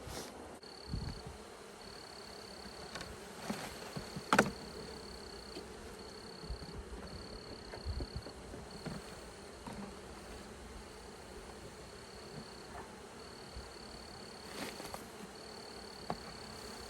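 Honey bee swarm buzzing in a steady hum, with scattered knocks and bumps, the loudest about four seconds in. A high, thin tone keeps starting and stopping alongside.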